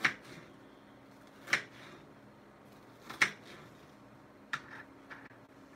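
Kitchen knife cutting through an onion and knocking on a cutting board: three sharp chops about a second and a half apart, then a few lighter taps near the end.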